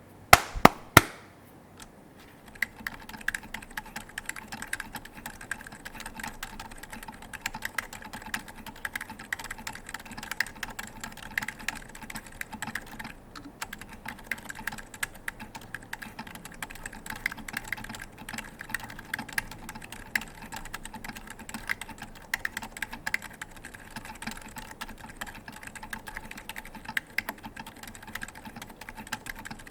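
Steady typing on a KFE CE custom mechanical keyboard: Holy Bobas franken tactile switches (Outemu milk stems in CIY housings, 68 g springs) on a brass top-mount plate, with DCS keycaps, giving a dense run of keystroke clacks. Near the start come three sharp clicks, much louder than the typing.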